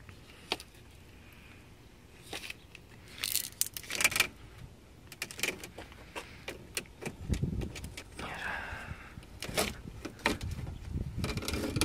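Old rubber door weather stripping on a 1989 Jeep Cherokee XJ being pulled by hand off the metal door-frame ridge: irregular scrapes, rustles and clicks as the seal comes away.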